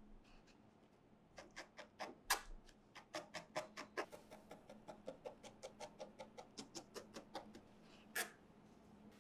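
A barbed felting needle stabbing repeatedly through wool into a foam pad, a quick run of soft taps, about four or five a second, starting about a second and a half in. Near the end there is one louder tap.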